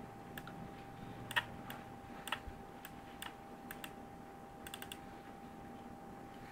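Irregular clicking of computer controls, about a dozen sharp clicks in small clusters, the loudest about a second and a half in. Under them runs a faint steady whine.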